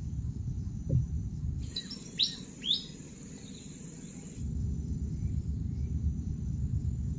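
A steady low rumble with a single knock about a second in. The rumble then drops away for nearly three seconds, and a bird gives three or four quick calls that each sweep down in pitch, over a high steady insect buzz. The rumble then returns.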